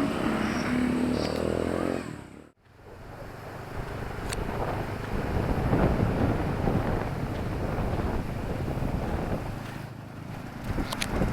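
Town street traffic: an engine drones at a steady pitch for the first two seconds, the sound cuts out abruptly for a moment about two and a half seconds in, then a steady traffic rumble continues.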